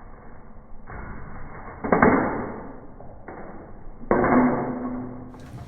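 A flip phone dropped in a drop test, hitting the ground: a sharp knock about two seconds in and a second loud knock about four seconds in, with a brief low tone after the second.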